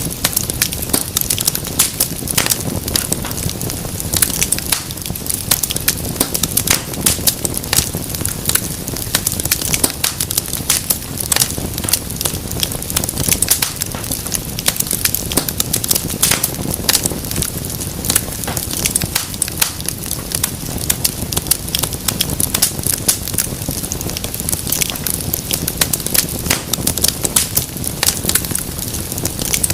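Wood fire in a fireplace crackling steadily, with dense irregular pops and snaps over a low continuous rush of the flames.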